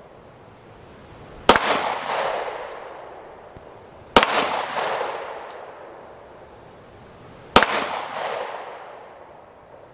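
Canik S120 9mm pistol (a CZ75 copy) fired three times, slow deliberate single shots a few seconds apart, the first about a second and a half in. Each sharp crack is followed by a long echo that dies away over about two seconds.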